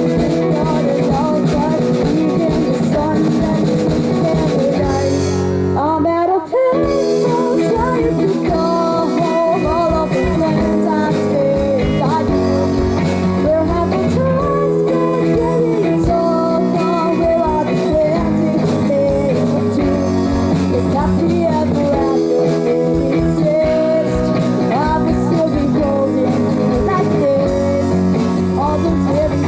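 A live band playing rock music: electric guitar and drum kit with a melodic lead line, and a brief break about six seconds in before the band comes back in.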